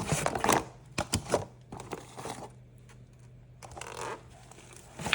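Incubator parts and their packaging being handled: irregular crinkling and light clicks and knocks in short bursts about a second apart.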